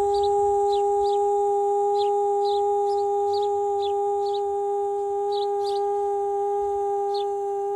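A woman's voice holding one long, steady sung note, fading slightly, as wordless light-language toning. Small birds chirp repeatedly in the background.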